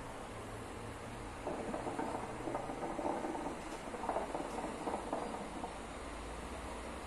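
Hookah water bubbling in the glass base as smoke is drawn through it. The bubbling starts about a second and a half in and lasts about four seconds.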